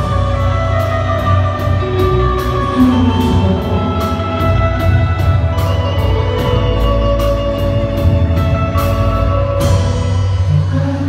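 Instrumental passage of a band song: a drum kit keeps a steady beat of about two to three cymbal strokes a second, under bass and held melody notes. The cymbal strokes drop out near the end.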